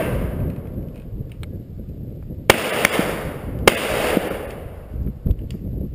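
Two loud gunshots about a second apart, each with a long echoing tail, with a few fainter cracks after them.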